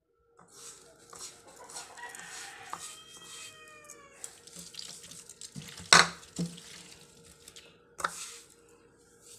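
Hands working salt and crushed garlic into small fish in a plastic basket: wet handling and rustling, with two sharp knocks later on, the first the loudest. A rooster crows once in the background, about three seconds in.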